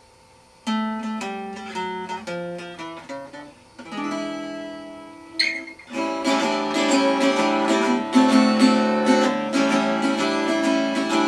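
Guitar playing the instrumental opening of a blues song. It starts about a second in with picked single notes and short runs, then moves to fuller strummed chords from about six seconds in.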